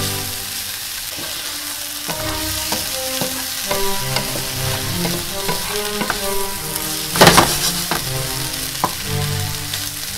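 Snow peas, mushrooms and onions sizzling in a hot nonstick frying pan, with a louder brief burst about seven seconds in as the vegetables are stirred. Background music plays over the sizzle.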